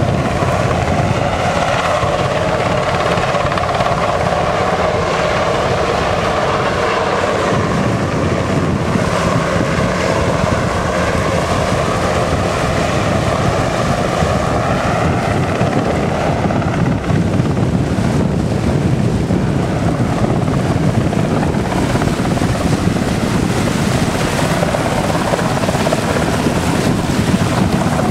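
A coastguard search-and-rescue helicopter flying close by: continuous rotor noise with a steady engine whine over it.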